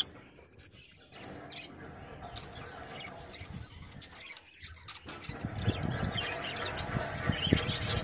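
Budgerigars chirping, with many short high chirps scattered through. A low rumbling noise comes in and grows louder over the last three seconds.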